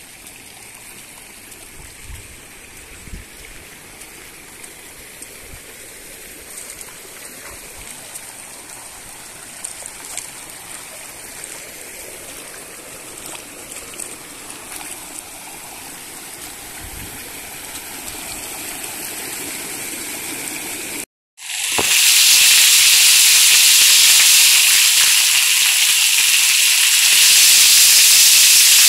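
Muddy rainwater running in a shallow stream over gravel ground, a steady quiet rush with a few low thumps. About 21 seconds in it cuts abruptly to heavy rain pouring onto a concrete alley, a much louder steady hiss.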